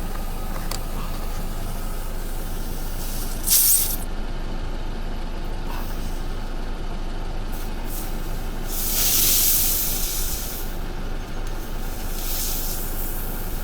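Air hissing in bursts at a punctured, bulged car tyre being plugged and reinflated: a short burst about three and a half seconds in, a longer one around nine seconds, and a weaker one near the end, over a steady low rumble.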